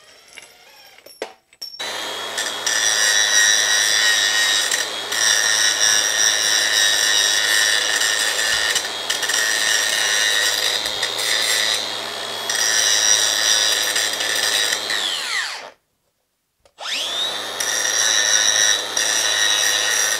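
Angle grinder grinding down weld beads on a steel rectangular tube: a steady high whine with the scrape of the disc on metal. It starts about two seconds in, winds down and stops near fifteen seconds, then spins up and grinds again a second later.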